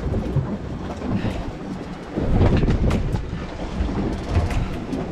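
Low rumble of wind and the boat working on choppy water, growing louder about two seconds in, with scattered knocks and clicks of a fish being handled on deck.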